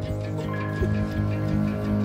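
Slow instrumental background music with long held notes.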